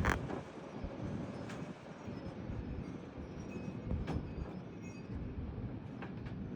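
Strong thunderstorm wind gusts blowing in a steady low rush, with a few sharp knocks scattered through it.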